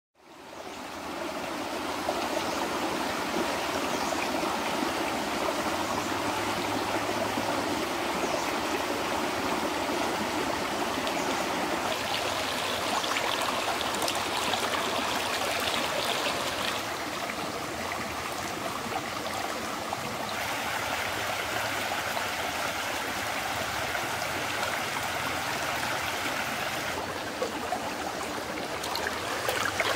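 Shallow stream running over rocks: a steady rush and trickle of water that fades in over the first second.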